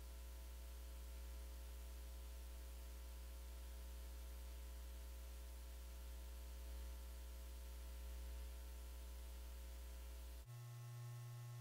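Steady low electrical hum with a faint hiss, and no handling noise heard. Near the end the hum cuts off suddenly and a slightly higher-pitched hum takes its place.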